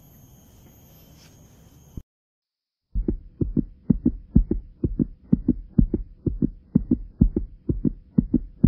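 Deep, heartbeat-like thumping, about three beats a second, edited in under the title cards. It follows about two seconds of faint outdoor insect buzzing that cuts off abruptly, then a second of silence.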